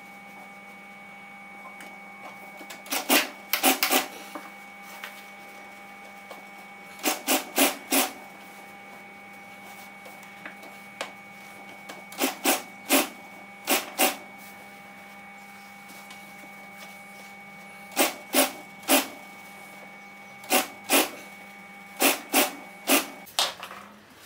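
Industrial sewing machine top-stitching an upholstery seam: its motor hums steadily while the machine runs in short bursts of two to four quick stitches at a time, with pauses in between as the material is guided. Near the end the motor hum winds down.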